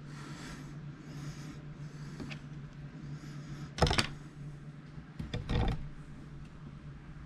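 Clicks and knocks of hands and a small tool handling laptop parts, with one sharp knock, the loudest sound, about four seconds in, and a short cluster of clicks about a second later. Soft breathing swells come in the first couple of seconds over a steady low hum.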